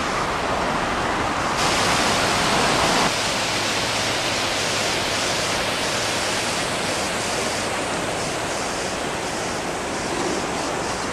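Steady rush of river water spilling over a low dam spillway. The tone changes abruptly about a second and a half in and again about three seconds in.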